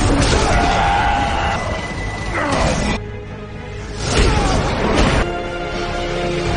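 Dramatic film score with sweeping, gliding whoosh effects for super-speed, in two passes; the sound dips briefly about three seconds in.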